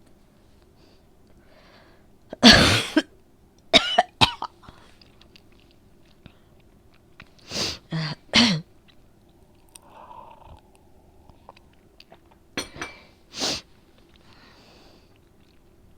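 A person with a cold coughing: one long cough, then short coughs in bouts of two and three, about eight coughs in all, with faint breaths between. A chesty cold cough that brings up a lot of phlegm.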